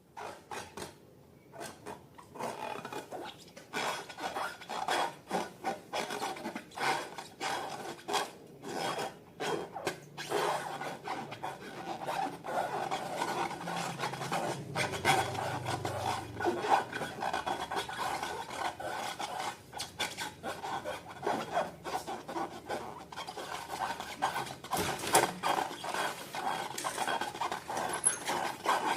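Slime being stirred and worked in a bowl: a continuous run of small sticky clicks and crackles over a steady scraping rub.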